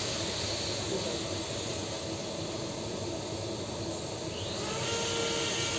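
TIG welding arc burning on a steel pipe joint, a steady hiss. A faint steady whine of several tones joins it about four and a half seconds in.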